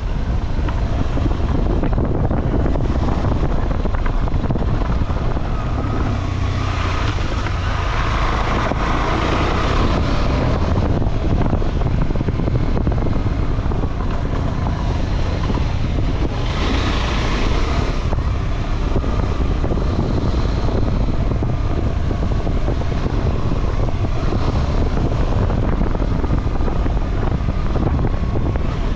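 Motorcycle engine running under way, mixed with heavy wind buffeting on the microphone. The sound swells twice, about a quarter of the way in and again past halfway.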